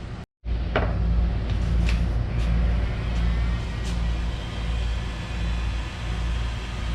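Heating tool running steadily, warming an old, stuck rubber handlebar grip to loosen it, with a few light clicks over the top.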